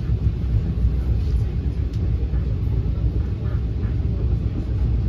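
Steady low rumble of an NJ Transit Multilevel passenger coach running along the track, heard from inside the car.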